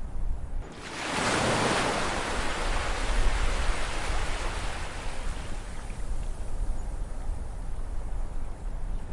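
Ocean surf: a wave breaks about a second in and its rushing wash slowly fades over the next several seconds, over a steady low rumble.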